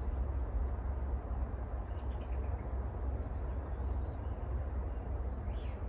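Outdoor ambience dominated by a steady, fluctuating low rumble of wind on the microphone, with a few faint bird chirps.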